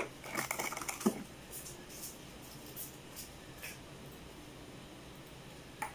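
Yeast being handled and added to flour in a steel mixing bowl: a brief crinkly rustle in the first second, then a few soft scattered clicks and taps.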